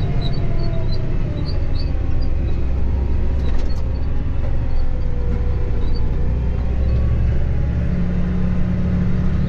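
Tractor engine running steadily under load while pulling a field implement, heard from inside the cab as a low, even drone.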